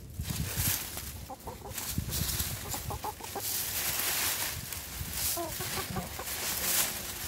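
Chickens scratching and burrowing in a pile of dry oak leaves, the leaves rustling and crackling, with a few short clucks in between.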